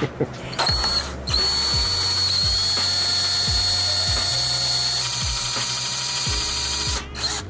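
Cordless drill boring a pilot hole into a stripped hard-steel stem bolt, so that a screw extractor can bite into it. A short run about half a second in, then after a brief pause a steady high whine for about six seconds that stops near the end, with a brief blip just after.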